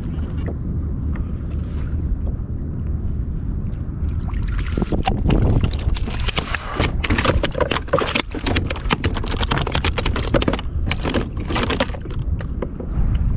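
A landed fish flopping and slapping on the plastic deck of a kayak: a rapid, irregular run of knocks starting about four and a half seconds in and stopping near the end. A steady low rumble of wind on the microphone runs underneath.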